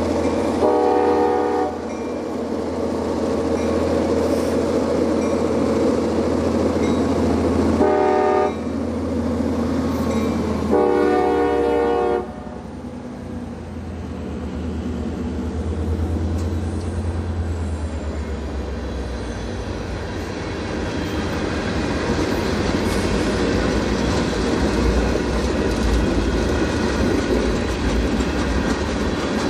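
Diesel freight locomotive air horn sounding three blasts: one near the start, a short one about eight seconds in, and the longest about eleven seconds in. Under them runs the steady drone of the diesel engines. After that the rolling rumble and clickety-clack of freight cars passing over the rails takes over.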